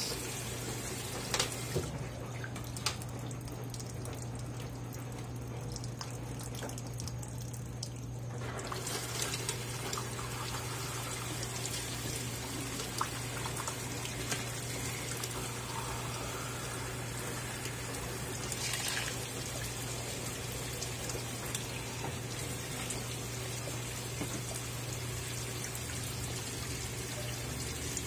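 Consul 13 kg top-load washing machine filling its drum with water: a steady rush of inflowing water with a steady low hum underneath.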